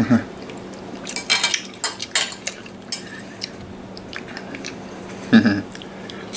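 A metal fork clinking and scraping against a plate in a series of short, sharp strikes as pieces of quesadilla are cut and picked up, over a faint steady hum.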